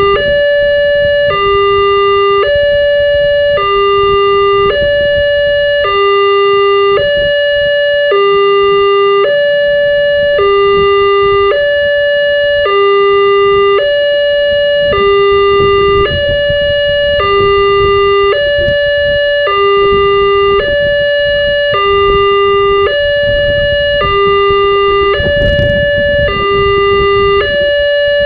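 Wantech electronic railway level-crossing alarm sounding its two-tone warning, a higher and a lower tone alternating evenly with each held about a second, the signal that a train is approaching. A low rumble runs underneath.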